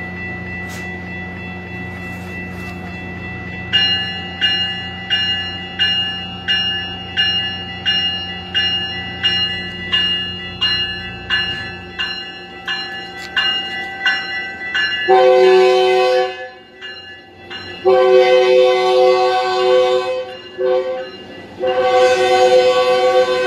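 Metrolink commuter train departing: a bell rings steadily about twice a second over the low hum of the idling diesel, then the cab car's multi-note air horn sounds two long blasts, a short one and a long one, the standard grade-crossing warning.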